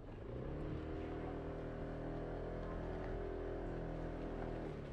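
Scooter motor starting to drive and running at a steady pitch, then cutting off near the end.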